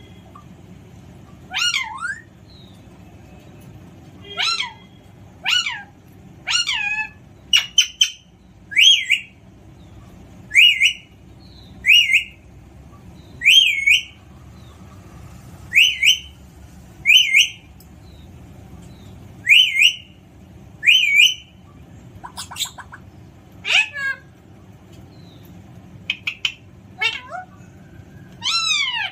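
Alexandrine parrot calling repeatedly: short, loud, pitched squawks and whistles, roughly one a second, many bending up or down in pitch, with a quick rattling chatter about two-thirds of the way through.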